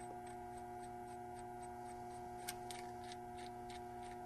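Faint steady electrical hum with light, regular ticking, about three ticks a second, and a couple of small clicks about two and a half seconds in.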